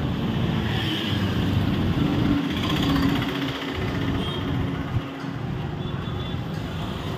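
Busy street ambience: a steady rumble of traffic, with a single sharp click about five seconds in.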